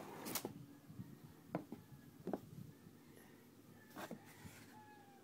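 Faint handling noise from a styrofoam parts box being moved about inside a cardboard shipping box: a few separate light knocks and scrapes.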